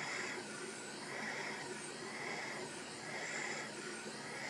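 Hot air rework station nozzle blowing over a laptop motherboard chip soaked in liquid flux, boiling off the flux's alcohol. A steady airflow hiss that swells and fades about once a second.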